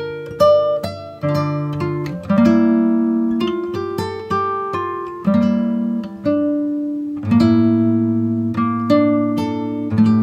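Background music: a plucked acoustic guitar playing gentle chords and single notes, each note ringing and fading.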